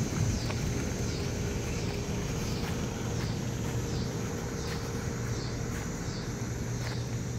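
Outdoor ambience under a stormy sky: a steady low hum with a high-pitched call repeating about every two-thirds of a second.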